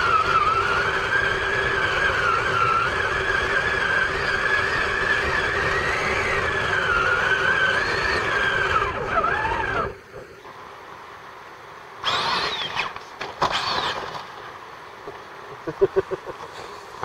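Traxxas Summit electric RC monster truck driving, its motor and gears whining in a steady high tone that wavers with speed. The whine cuts off sharply about ten seconds in. Later come two short whining bursts of throttle and a quick run of ticks near the end.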